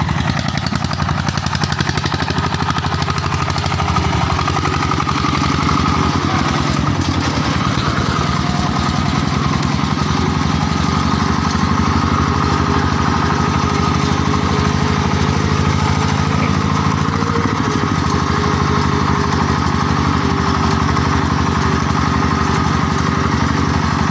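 Single-cylinder diesel engine of a công nông two-wheel tractor running steadily under way, with a fast, even chugging beat.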